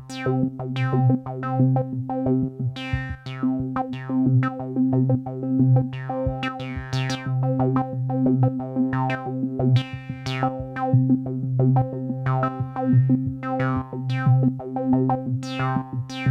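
Techno played on a Behringer DeepMind 12 analog polysynth: a sustained low synth note with repeated filter sweeps that close down from bright to dull, over a steady electronic drum beat from a Roland TR-8 drum machine.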